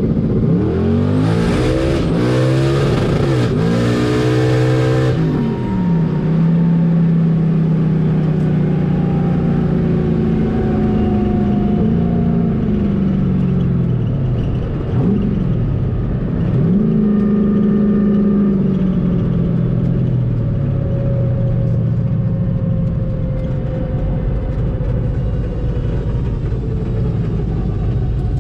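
Turbocharged LS V8 of an S10 drag truck at full throttle, its revs climbing and dropping back several times through gear changes, with a loud rushing hiss for about five seconds. Then the throttle closes: the hiss stops and the engine settles to a lower, slowly falling drone as the truck slows after an eighth-mile pass.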